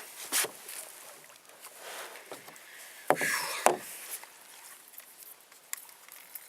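Short splashing and knocking noises from a small boat on the water, the loudest a sharp burst about three seconds in that lasts under a second.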